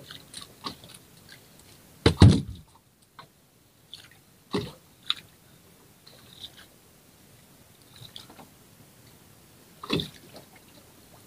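A few sudden knocks and thumps aboard a small fishing boat, the loudest about two seconds in, another pair near the middle and one near the end, with light clicks between.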